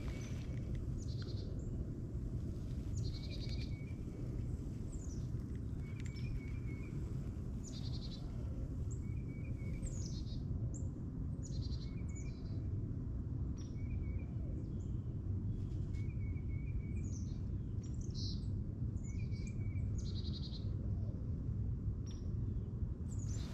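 A songbird singing the same short phrase over and over, about every two seconds: a falling whistle, a buzzy note, then a quick trill. A steady low rumble lies underneath.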